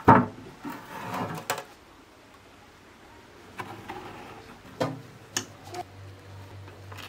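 A refrigerator's plastic freezer-compartment flap clacks open, then homemade ice-cream cups and popsicle moulds are set down on the frosted freezer floor with several light knocks. A low steady hum comes in about halfway through.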